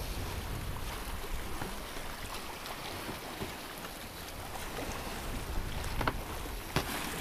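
Wind and sea rushing past a sailboat under way offshore, a steady wash with wind rumbling on the microphone. A couple of light knocks near the end.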